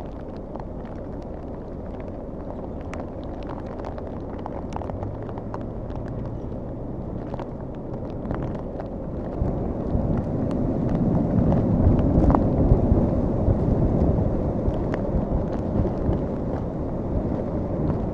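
An SUV stuck in deep snow, its engine running, with blizzard wind on the microphone. The rumble grows louder about ten seconds in.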